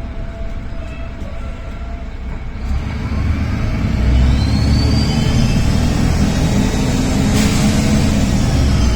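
VDL DB250 ELC Lowlander bus's diesel engine pulling away and accelerating, growing louder about three seconds in, with the turbocharger's whistle rising in pitch over it. A short hiss about seven seconds in.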